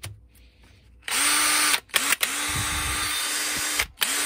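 Stanley Fatmax V20 (SCD711) cordless hammer drill fitted with a new 755-size motor, test-run on the trigger: it spins up and runs at speed in four short runs with brief stops between, the first about a second in. It runs normally, the gearbox sounding fine.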